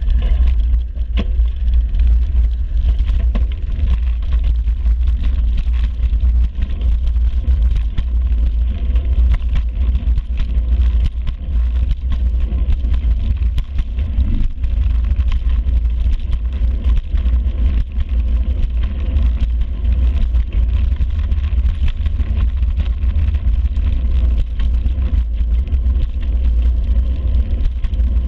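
Steady low rumble of wind buffeting the microphone of a camera on a moving bicycle, mixed with road vibration, beginning sharply as the ride gets under way; faint passing traffic under it.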